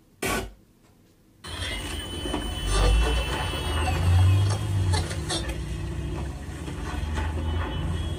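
A brief knock, then about a second and a half in the Onn Blast 5.1.2 Dolby Atmos soundbar and its wireless subwoofer start playing demo material: heavy deep bass under scattered sharp hits and effects sounds. A thin high whine falls in pitch around the two-to-four-second mark.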